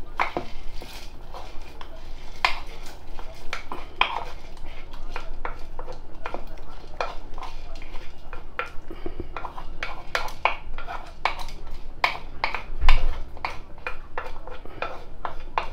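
Wooden spoon scraping and tapping against a wooden bowl as dried lentils are pushed out into a pot of broth: a run of irregular clicks and knocks. One heavier low thump comes about 13 seconds in.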